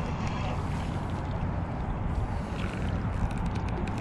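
Steady low rumbling noise with light splashing in the second half as a hooked blue catfish thrashes in the shallows at the water's edge.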